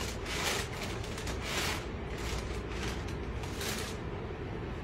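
Steady low hum of aircraft cabin air, with about four short hissing bursts over it.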